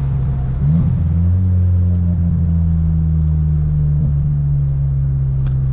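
A car driving at a steady speed: a continuous low engine and road drone that shifts slightly in pitch about a second in.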